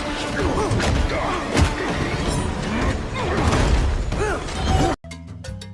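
Busy film-soundtrack mix of clicks, knocks and whooshing effects over music. It cuts off abruptly about five seconds in to a quieter music track with steady held notes.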